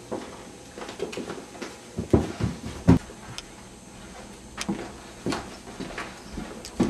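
Irregular knocks and thumps, several loud ones a little after two seconds in and about three seconds in, with quieter ones scattered through the rest.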